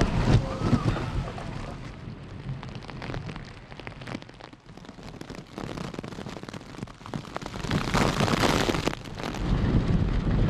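Typhoon wind and heavy rain, rising and falling in gusts, with wind buffeting the microphone. A strong surge comes about eight seconds in and lasts about a second.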